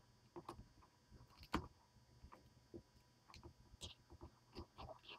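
Faint, irregular clicks and snips of scissors cutting at a smartphone's opened frame, the sharpest about one and a half seconds in.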